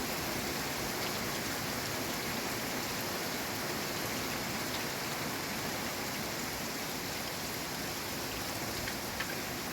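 Steady rainfall, an even hiss of drops with a few sharper individual drop ticks near the end.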